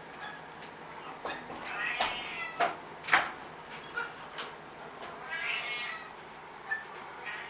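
Kitten meowing: two drawn-out, wavering calls, about two seconds in and again about five and a half seconds in, with a few sharp taps or knocks in between, the loudest about three seconds in.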